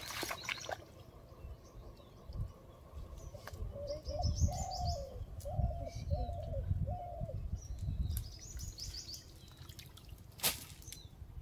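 Birds calling: a run of five low hooting notes about midway, with high chirps from small birds before and after it. A sharp click near the end.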